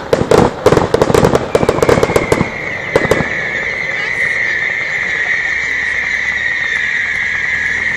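Fireworks: a dense run of rapid crackling bangs for about the first two and a half seconds, then a steady high-pitched whistling hiss that carries on.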